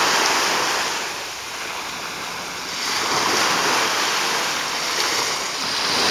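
Water rushing and splashing along the hull of a moving boat, with wind on the microphone; the rush swells, eases for a couple of seconds, then swells again.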